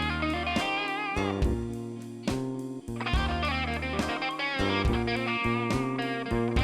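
Background music: a guitar-led instrumental track with a steady beat and a note-bending lead.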